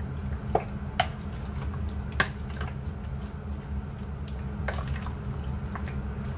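A spoon stirring chicken through a thick yogurt marinade in a plastic bowl: wet squishing with several sharp clicks as the spoon knocks the bowl, the loudest about two seconds in. A steady low hum runs underneath.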